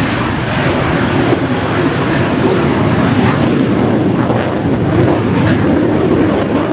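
Shockwave jet truck's three jet engines running flat out with afterburners lit during its quarter-mile run: a loud, steady jet roar.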